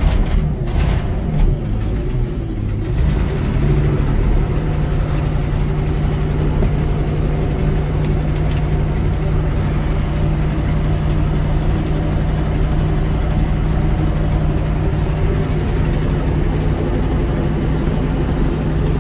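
Ford 370 big-block V8 in a 1980 Ford LN700 truck running on its own, just cold-started on the manual choke after sitting for years. It runs unevenly for the first few seconds, then settles into a steady idle about three seconds in. It is hitting on all eight cylinders but has a bad exhaust leak.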